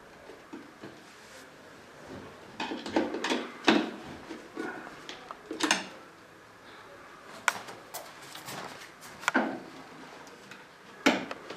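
Irregular knocks and clunks of shoe-cabinet parts being handled and fitted together during assembly, with several sharp clacks about three to four seconds in and a last one near the end.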